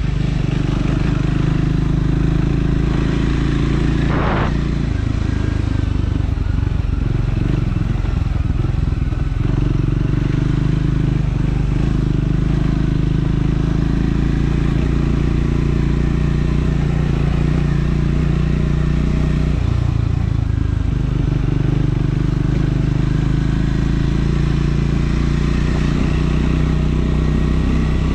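Triumph Scrambler 400 X's single-cylinder engine running as the motorcycle is ridden at a fairly steady pace, its pitch shifting a few times as the throttle or gear changes. A brief sharp clatter about four seconds in.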